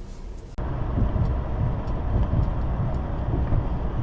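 Steady low rumble of a car's engine and road noise, picked up by a dashcam. It cuts in suddenly, louder, about half a second in, replacing a quieter hum.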